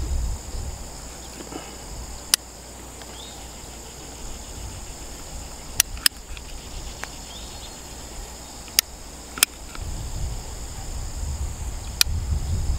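Insects singing in a steady high chorus, with about six sharp clicks scattered through it and a low rumble that comes up near the end.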